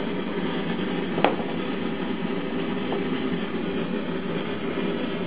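Handheld gas blowtorch burning steadily, a constant rushing noise, with one sharp click a little over a second in.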